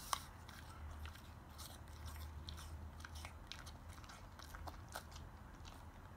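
A Samoyed chewing a mouthful of apple: a run of short crunches that thins out about five seconds in, over a steady low hum.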